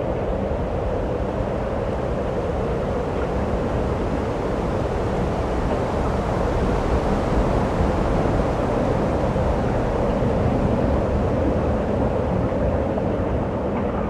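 Strong blizzard wind blowing steadily with a continuous rushing noise, swelling a little in the middle.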